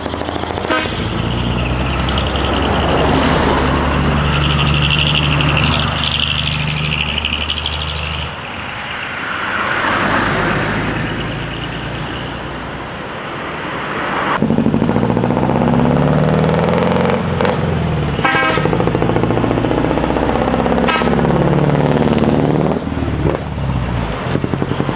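Diesel engines of decorated trucks running as they pull out, steady at first and revving up and down in the second half, with a few short sharp sounds.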